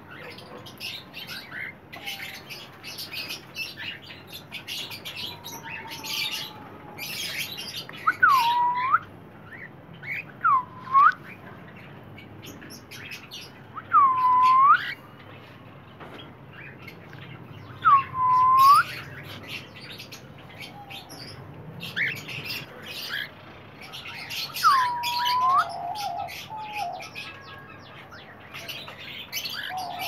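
Cockatiels calling: five loud, clear whistles that dip and rise again in pitch, a few seconds apart, over constant scratchy chirping and chatter.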